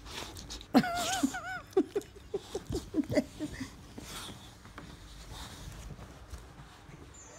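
Vocal sounds: a wavering, whine-like call about a second in, then a quick run of short pitched bursts, over rustling and handling noise from bedding.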